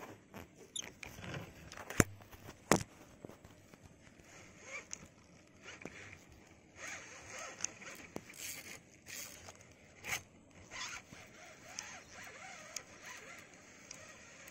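Fishing reel being cranked to retrieve a lure: a rasping, zipper-like whir that comes and goes in short spells, with two sharp clicks about two seconds in.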